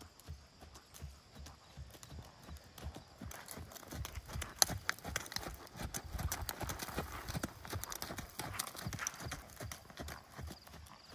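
Hoofbeats of a ridden horse moving briskly over the sand footing of a riding arena, a run of repeated strikes in a steady rhythm, with one sharper, louder knock about four and a half seconds in.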